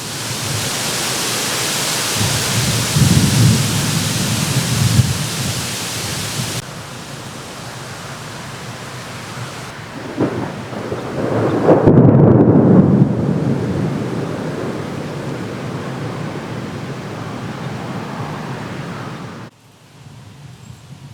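Thunderstorm: steady rain hiss with two low rolls of thunder, one a few seconds in and a louder one about ten to thirteen seconds in. The rain sound changes abruptly twice, as if separate recordings were joined.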